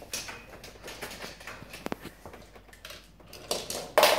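Die-cast Hot Wheels toy cars clicking and clattering against one another and the hard floor as they are picked through in a pile, with a louder clatter near the end.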